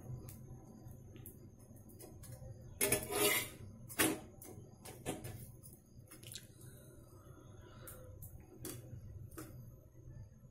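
Flat steel spatula scraping and tapping against an iron tawa as a paratha is turned and pressed while it dry-roasts: scattered sharp scrapes and clicks, the loudest about three to four seconds in, over a steady low hum.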